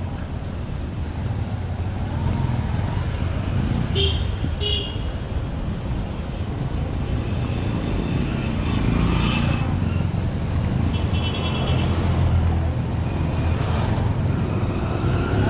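Street traffic: motorcycles riding along and passing close, their engines making a steady low rumble. Short high-pitched beeps sound about four seconds in and again a few times around the middle.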